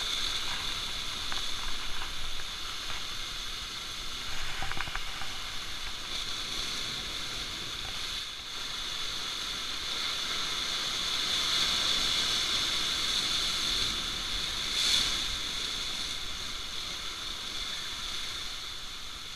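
Sea surf washing and breaking over shoreline rocks: a steady hiss of water that swells and eases.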